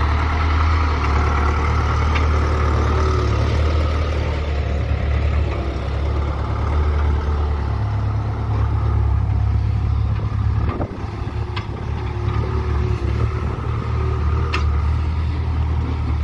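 Deutz-Fahr tractor's diesel engine running steadily as it pulls a loaded tandem grain trailer, easing off for a moment about two thirds of the way through. A few sharp knocks sound in the second half.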